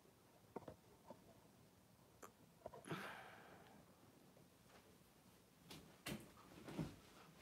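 Near silence: quiet room tone broken by a few faint clicks, a soft rustle about three seconds in, and two brief soft bumps near the end.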